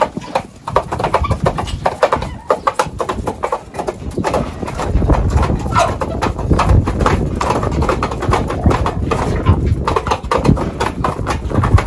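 Domestic turkeys pecking feed from a trough: a rapid, uneven patter of beak knocks. From about five seconds in, wind rumbles on the microphone.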